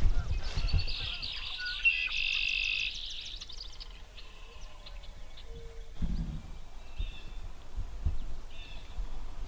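A songbird sings a fast, rapidly repeated trill for about two and a half seconds, then fainter bird chirps carry on. A dull low thump comes about six seconds in.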